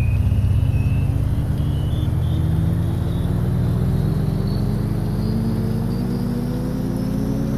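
Car driving at highway speed, heard from inside the cabin: a steady low rumble of engine and road noise, with a whine that rises slowly and steadily in pitch.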